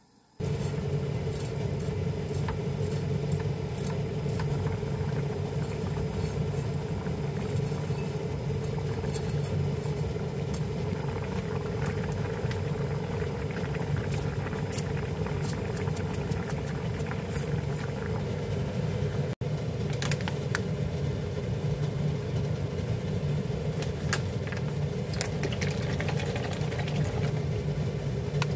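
Water with spaghetti boiling in a frying pan on an induction hob: a steady low rumble with small pops and clicks throughout. It drops out for an instant about two-thirds of the way through.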